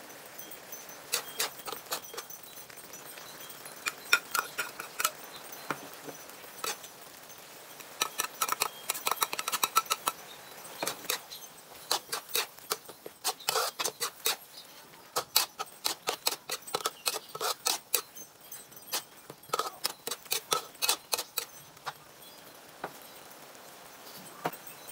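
Metal ladle and spatula clinking and scraping against a wok in bursts of quick strokes as minced beef and tomatoes are stirred, over a steady hiss from the simmering sauce.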